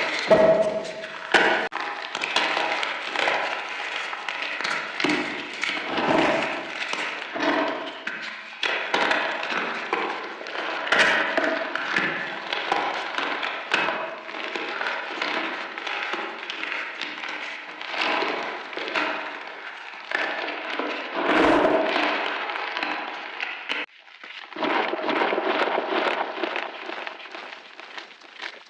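Close-up crunching of reformed chalk chunks: a dense, continuous run of crisp cracks and crumbly snaps, broken by a short pause near the end.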